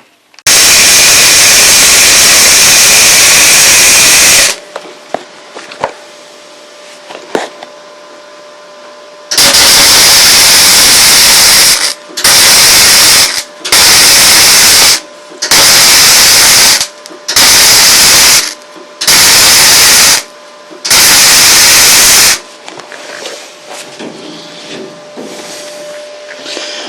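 Electric arc welding on the steel bulkhead plate of a narrowboat engine bay. The arc sizzles in loud bursts that start and stop sharply: one long run of about four seconds, a shorter one, then five runs of about a second each.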